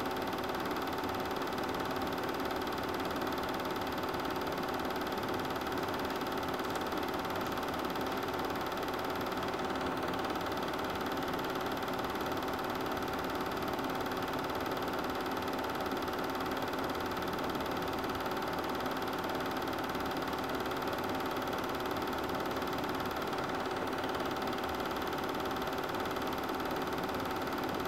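Super 8 film projector running steadily: an even mechanical hum from its motor and film mechanism, with several steady tones and no change in pace.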